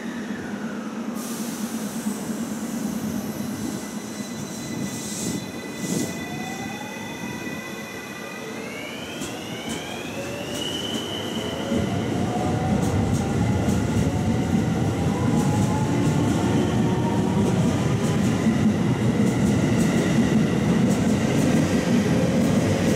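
A JR West 223 series electric train pulls out of the station. Its traction motors give a whine that climbs in pitch about nine to eleven seconds in, after two short sharp sounds around five to six seconds in. From about twelve seconds in, a louder steady rumble of wheels on rail builds as the cars run past.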